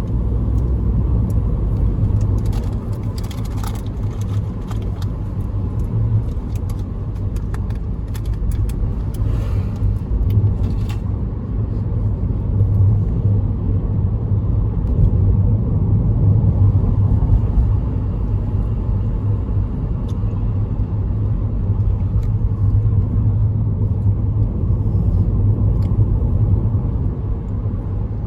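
Car driving: a steady, low road and engine rumble, with scattered faint clicks in the first half.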